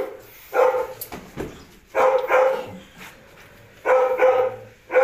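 A dog barking repeatedly, in short clusters of one or two barks about every one and a half to two seconds.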